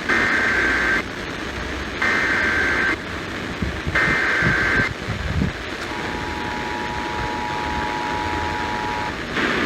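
Emergency Alert System broadcast: the SAME header's screeching data tones sent three times, each about a second long with a second's gap, then the two-tone attention signal held for about three seconds, over a steady hiss of radio static.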